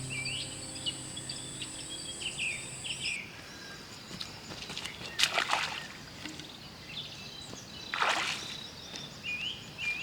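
Birds chirping in repeated short calls, with an insect's steady high buzz that stops about three seconds in. Two brief splashes of water come around the middle and near the end.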